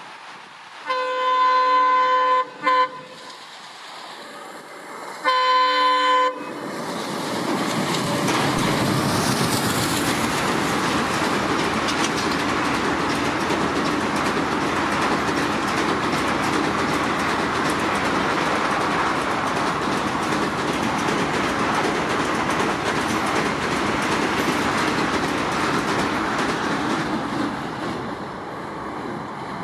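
Alco WDM-3A diesel locomotive's horn sounding twice, the first blast briefly broken, followed by a long train of ICF passenger coaches rushing past at speed, the wheels rumbling over the rails, easing off near the end.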